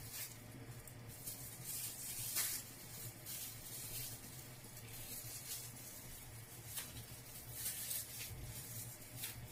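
Thin plastic bag rustling and crinkling as it is handled and tied off around soft bean batter, in repeated soft hissy rustles over a steady low hum.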